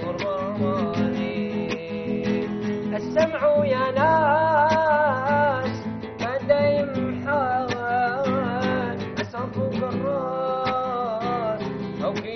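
A man singing a slow melody with wavering, ornamented held notes, accompanied by a nylon-string classical guitar being plucked.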